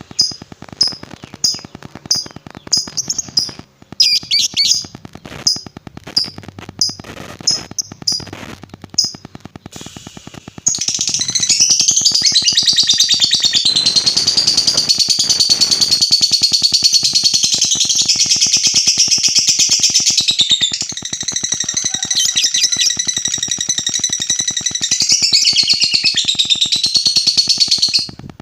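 Lovebird calling. First comes a run of short, sharp high chirps at about two a second. About eleven seconds in, these give way to a long, unbroken, rapid chattering trill (the 'ngekek panjang' long chatter that lovebird keepers prize), which falters briefly and then runs on until it stops abruptly near the end.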